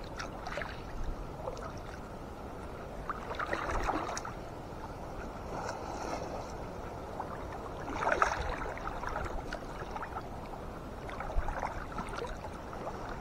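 Sea water sloshing and splashing close by while a gill net is hauled, with louder splashes about three and a half seconds in and again about eight seconds in.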